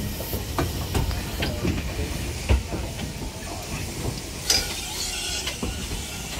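Steam hissing from the standing BR Standard Class 4 2-6-4 tank locomotive 80151, with a stronger burst of hiss about four and a half seconds in. Scattered knocks, the loudest about two and a half seconds in.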